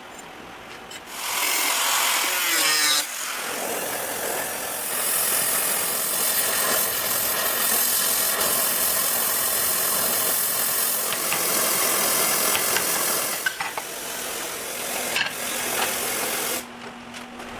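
A power tool running steadily, starting about a second in and cutting off near the end.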